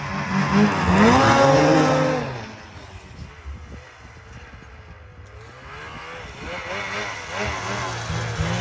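Ski-Doo 850 snowmobile's two-stroke engine revving hard in rising-and-falling sweeps. It fades as the sled pulls away across the field about two seconds in, then grows louder again near the end as it comes back.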